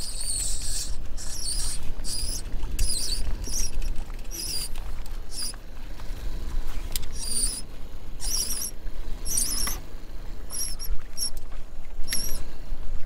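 Short, high squeaks, about one a second, from the mainsail and halyard running up the mast of a small trailer sailer as the sail is hauled up by hand.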